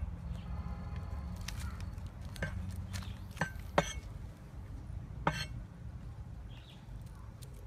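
Cleaver chopping garlic on a thick round wooden chopping board: a handful of irregular, spaced-out sharp knocks, the loudest a little under four seconds in, over a low steady rumble.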